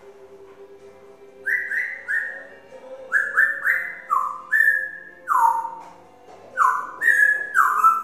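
African grey parrot whistling a tune: a run of short, clear notes starting about a second and a half in, several stepping down from a higher to a lower pitch, over faint background music.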